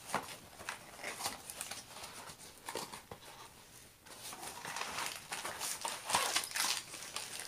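Long cardboard box being handled and opened by hand: rustling, scraping and small knocks of the cardboard, busier in the second half as the end flap is pulled open.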